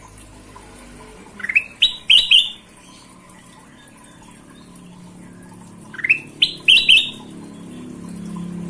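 Kutilang emas singing two short phrases of quick, bright chirps a few seconds apart, each opening with an upward-sliding note.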